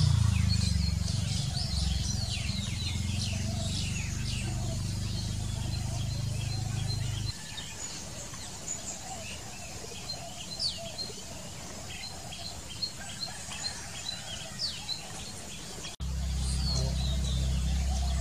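Many birds chirping, with short chirps throughout. A steady low rumble underneath drops out about seven seconds in and comes back abruptly near the end.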